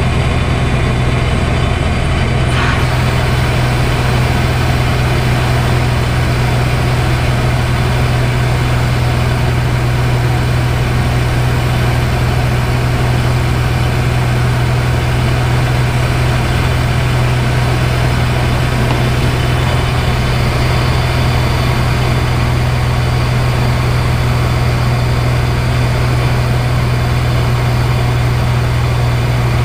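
Light aircraft's piston engine and propeller droning steadily in level cruise, heard from inside the cockpit.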